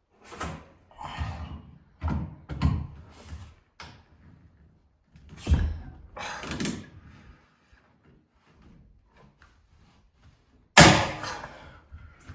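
A run of metal clunks, knocks and scrapes as brackets and sheet-metal parts are handled and fitted, with one loud sharp bang about eleven seconds in that rings out briefly.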